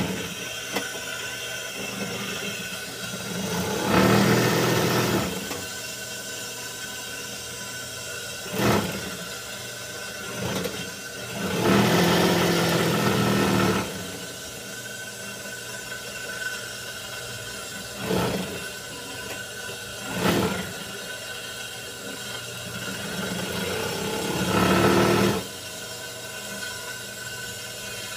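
JUKI industrial sewing machine stitching in short spurts of one to two seconds, several times over, each spurt a loud rapid needle rattle, with its motor humming steadily in between.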